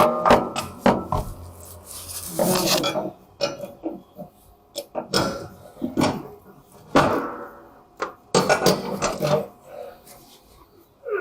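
A wrench tightening the blade bolts under a riding mower's deck: irregular metal clicks, clanks and short scrapes.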